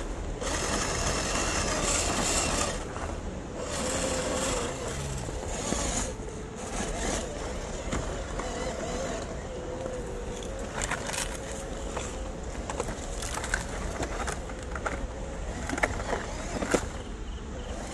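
Electric motor and gear drive of a 1/12-scale WPL C24 RC crawler whining steadily as it crawls over loose river stones, with its tyres crunching on the gravel. Pebbles click and knock under the wheels, with a few sharper knocks near the end.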